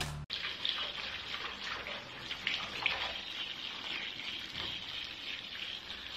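Water running steadily from a handheld shower head into a bathtub, a spray of water over a wet cat. It starts abruptly about a quarter of a second in.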